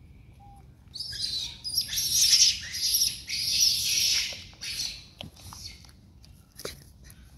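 Baby rhesus macaque squealing: a high-pitched, scratchy shriek from about a second in until about four seconds in. A few soft clicks follow.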